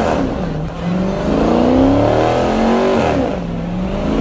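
Supercharged 6.2-litre Hemi V8 of a Dodge Hellcat Redeye revving hard while its rear tyres spin in a smoky burnout, the engine pitch climbing and dropping in repeated surges.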